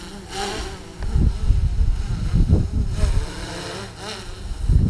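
DJI Inspire 1 quadcopter flying close by, its four propellers giving a steady insect-like buzz. Irregular low rumbling buffets on the microphone start about a second in and are the loudest part.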